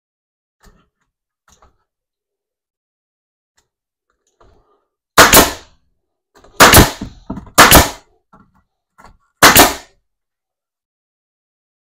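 Four loud, sharp bangs from fastening work on a wooden layout frame. Each bang is a quick double hit, and they come about one to two seconds apart.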